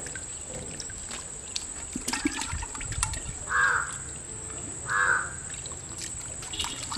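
A fish wriggling through wet mud and a shallow muddy puddle, with small wet splashes and clicks. Two short harsh calls, about a third of a second each, cut in about three and a half and five seconds in and are the loudest sounds.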